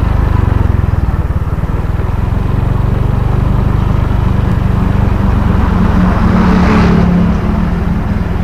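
A motor vehicle's engine running steadily on the road, with a low, pulsing hum. About six to seven seconds in, a rush of road noise swells to a peak and falls away again.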